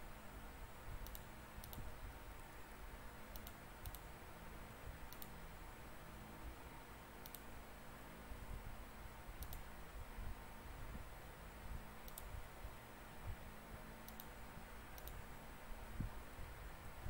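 Faint, sparse clicks of a computer mouse and keyboard, some in quick pairs, at irregular intervals of one to two seconds, as text boxes are placed and digits typed. A steady low room hum lies underneath.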